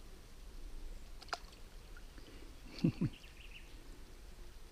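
Quiet riverside background with faint water. There is a single sharp click a little over a second in, then two short, low, falling sounds in quick succession about three seconds in.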